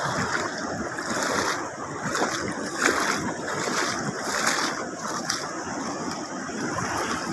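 Sea waves washing against shoreline rocks: a steady rushing of surf with irregular swells, louder about three and four and a half seconds in.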